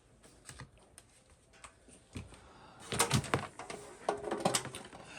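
Light clicks and small clatters of objects being handled on a workbench, sparse at first and then a quick run of them over the last two seconds or so.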